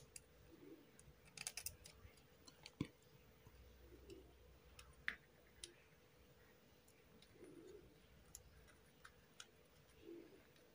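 Near silence broken by scattered faint clicks and ticks of a small screwdriver turning screws and handling the acrylic case panels and metal spacers.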